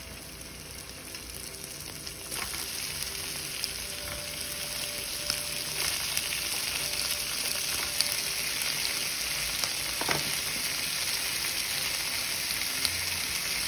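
Raw shrimp being dropped into a pan of garlic sautéing in olive oil, the sizzling growing louder as more shrimp go in, with occasional light taps as they land.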